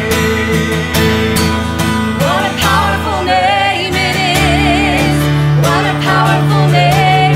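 Live worship song: a woman sings the lead with vibrato over strummed acoustic guitar and electronic keyboard, her voice coming in about two seconds in.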